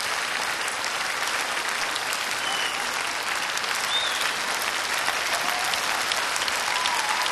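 Studio audience applauding steadily after a ballroom tango performance ends, with a few short high calls rising above the clapping.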